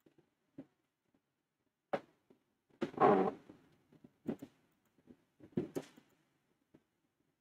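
A few scattered clicks and taps from a computer mouse and keyboard, the loudest a short burst about three seconds in.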